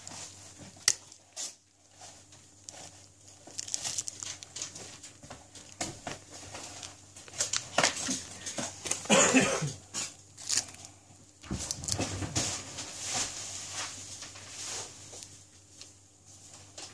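Scattered small clicks, taps and handling noises in a small room, with a short pitched, voice-like sound about nine seconds in.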